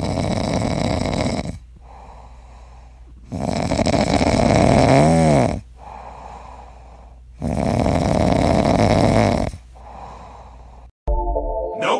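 French bulldog snoring in its sleep: three long, loud snores about four seconds apart, with quieter breaths between them.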